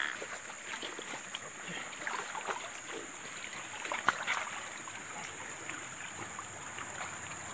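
Water sloshing and splashing as a person wades in a shallow stream and sweeps a hand dip net through submerged leaf litter, with small knocks and one sharp tick about four seconds in. A steady high-pitched whine runs underneath.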